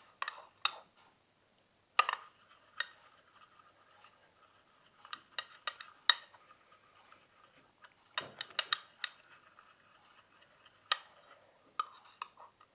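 A spoon stirring a runny mix of glue and water in a bowl, clinking against the bowl at irregular moments, with a quick run of several clinks about eight seconds in.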